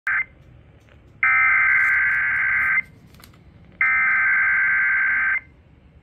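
Emergency Alert System SAME header data tones played through a weather radio's speaker: the end of one burst at the start, then two more harsh, raspy digital bursts of about a second and a half each, a second apart. They mark the start of an EAS severe thunderstorm warning.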